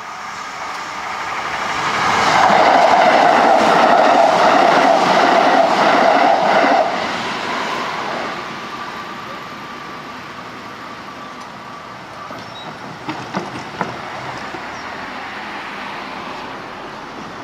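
Kintetsu 2800-series and 5211-series electric train sets running over a level crossing, the wheels clacking over rail joints. The sound swells about two seconds in, drops off sharply about seven seconds in, then fades away, with a couple of sharp clicks near the end.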